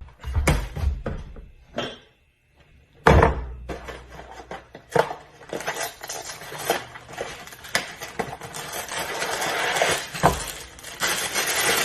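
Irregular knocks and clinks of hard objects being handled, like dishes or utensils clattering. There is a short silent gap about two seconds in and a loud knock about three seconds in. A hissing noise builds near the end.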